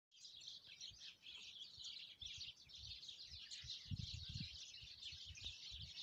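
A flock of small songbirds twittering and chirping continuously, with a few low bumps about four seconds in.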